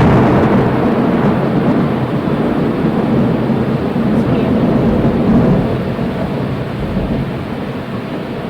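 Thunderstorm: a long, loud low rumble over steady rain, easing off over the last few seconds.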